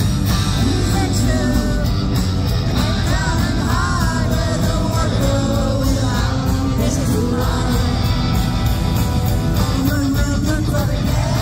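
Live rock band playing, with drums driving a steady beat under a male lead singer singing into the microphone.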